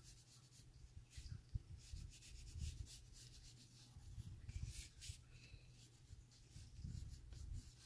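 Colored pencil scratching on paper in many short, quick strokes as it colours in an outlined band, faint, with a few soft low bumps.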